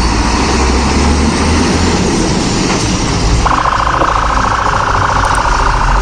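Fire engine's diesel engine running with a deep rumble as the truck pulls out and drives off; about halfway through a steady buzzing warning tone joins in and holds.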